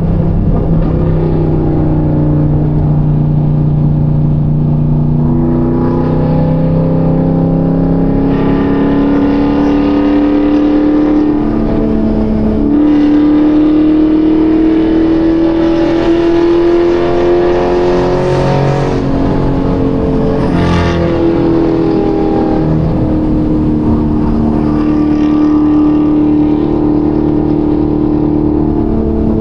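Chevrolet Camaro ZL1's supercharged 6.2-litre V8 pulling steadily at highway speed, its note climbing slowly and then dropping back as it shifts, about twice. The engine is heard from the open cabin of the convertible, over steady road noise.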